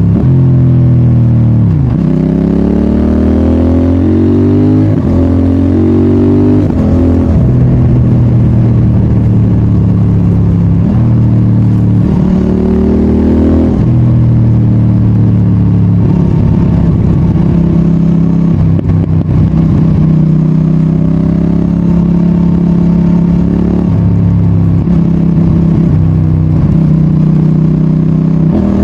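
CFMOTO 800NK Advanced's parallel-twin engine pulling through the gears under a rider. Its note falls then climbs, with abrupt drops in pitch at several gear changes in the first half, then holds steadier cruising revs with smaller shifts.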